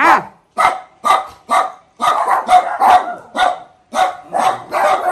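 Two small fluffy dogs barking over and over in short, sharp, high barks, about three a second. The barking is loud enough to drown out talk.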